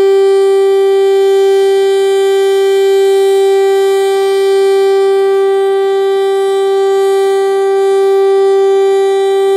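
Federal Signal STL-10A outdoor warning siren sounding the full-alert signal: one loud, steady tone held at a constant pitch, its loudness swelling and fading slightly.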